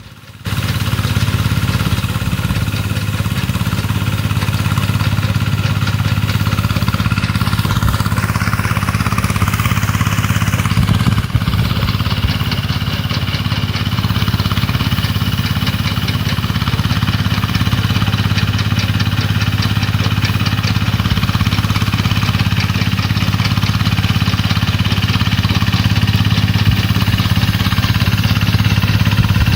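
Small engine of a motorised rice reaper running steadily at an even speed.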